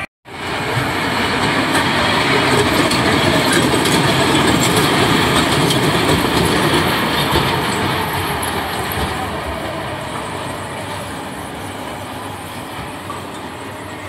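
Wacky Worm kiddie roller coaster train running along its steel tube track, a steady rumble and rattle of wheels and cars. It swells to its loudest a few seconds in as the train passes close, then fades as it moves away.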